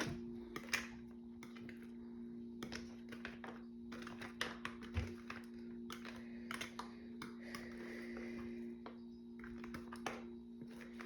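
Faint, irregular clicks and scrapes of sticky marshmallow-coated cereal mixture being scraped from a bowl into a baking tin, over a steady low hum.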